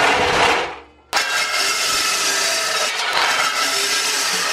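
Evolution metal-cutting chop saw cutting through seamless steel tube. A first burst of cutting fades away within the first second, then after a brief gap a steady cut starts abruptly and runs on.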